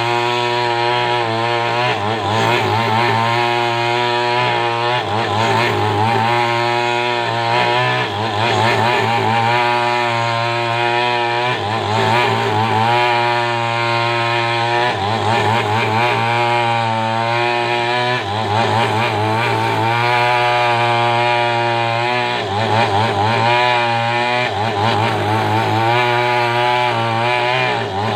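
Chainsaw running continuously while cutting through coconut palm wood to square a log into a beam; a steady engine note whose pitch wavers slightly as it works.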